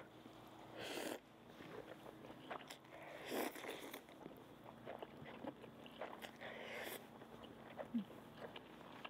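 A person slurping and chewing noodles at close range: three longer slurps, about a second in, a few seconds in and near seven seconds, with small wet mouth clicks between.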